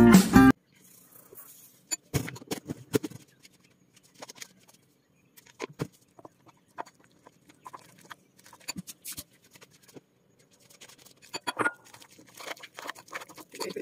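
Metal spoon clinking and scraping against a ceramic bowl while stirring flour into a wet corn-kernel and egg batter, in scattered irregular clicks and short scrapes.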